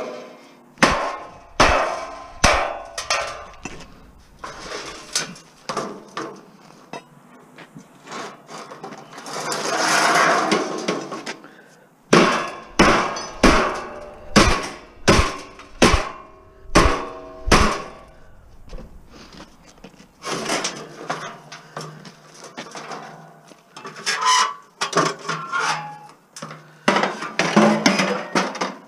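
Hammer blows on the sheet metal of a stainless steel barbecue, sharp ringing strikes, many in a steady run of about two a second through the middle, knocking at a side that is welded on rather than bolted. About ten seconds in, a longer scraping rattle of metal.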